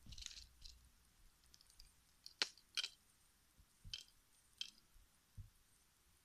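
A handful of sharp, scattered clicks with a few soft low thumps, from a small metal tool being worked at a cat's paw.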